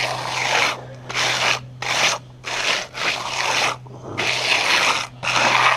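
Trowel scraping and spreading wet concrete patch mix over a concrete driveway, in about six rasping strokes each under a second long.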